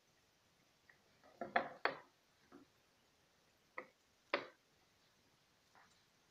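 A handful of short knocks and taps at uneven intervals: a cluster around a second and a half in, then two sharper single ones about a second and a half apart near the four-second mark.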